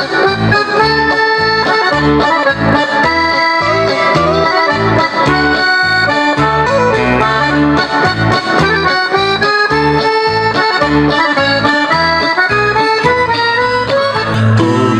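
Accordion-led music with a steady beat. About two seconds before the end it changes over to a low, steady drone as a different tune begins.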